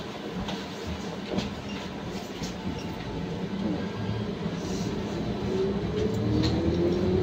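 Cabin noise of a Trolza-5275.07 Optima trolleybus under way: steady low rumble with scattered rattles and clicks. About five seconds in, an electric whine from the traction drive rises in pitch and the noise grows louder as the trolleybus gathers speed.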